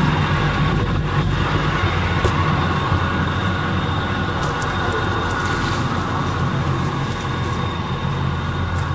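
Heavy machinery engine running steadily at a constant speed, a low droning hum that holds level throughout.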